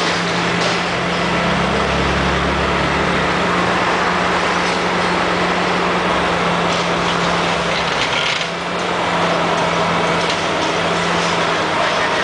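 Komatsu PC400 high-reach demolition excavator's diesel engine running steadily under load while its jaw attachment crushes a reinforced concrete slab, with occasional cracks and crunches of breaking concrete and falling debris.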